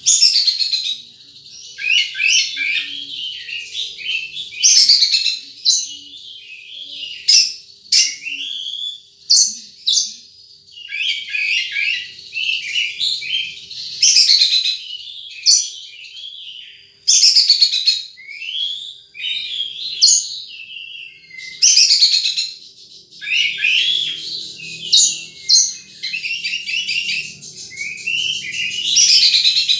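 Wild sunbird singing: high, rapid phrases repeated every few seconds, many opening with a sharp falling whistle and running into a quick string of chirps and trills.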